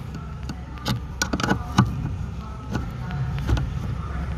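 Irregular clicks and knocks of a pry tool levering a Ford Transit Custom clutch master cylinder out of its mounting in the pedal box, plastic and metal parts being forced apart; the sharpest knock comes a little under halfway through. The force used breaks the cylinder's retaining tabs.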